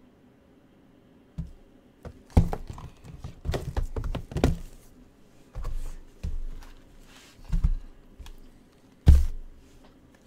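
Sealed cardboard trading-card boxes being handled and set down on a table: a series of irregular thuds and knocks with some rubbing of the boxes, the loudest about nine seconds in.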